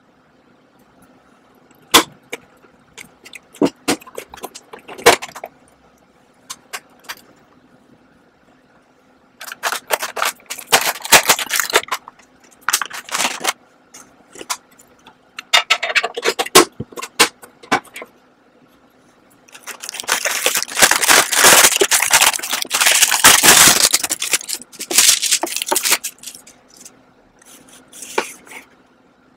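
A metal tree-shaped cookie tin and its cookie tray being handled and opened: scattered clicks and taps, then bursts of scraping, rattling and crinkling, the longest and loudest about two-thirds of the way through.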